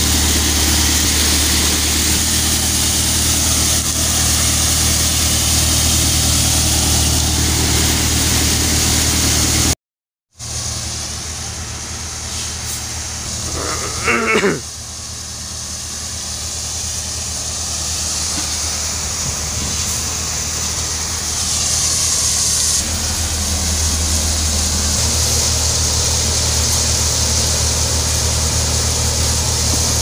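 Tractor-driven paddy thresher running steadily: a low engine hum under a constant hiss from the threshing drum. The sound cuts out for a moment about a third of the way in and returns quieter, slowly building back up, with a short falling cry midway.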